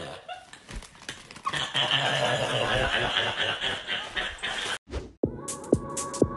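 A woman's loud, drawn-out 'burp laugh', starting about one and a half seconds in and cut off abruptly. Electronic music with a steady beat starts near the end.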